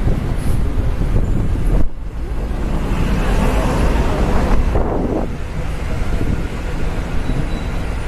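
Open-top tour bus running through city traffic, with wind buffeting the microphone on the open upper deck and a steady low rumble. The noise briefly drops out about two seconds in and swells louder in the middle.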